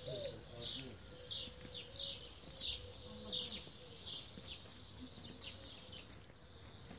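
A small bird calling over and over, short high falling chirps about one and a half times a second, fading out near the end.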